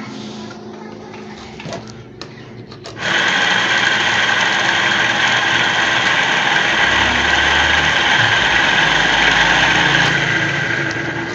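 Electric madhani (lassi churner) motor switched on after a few clicks about three seconds in, running steadily with a high whine, then switched off and winding down near the end. It runs freely now that its jammed shaft bush has been freed.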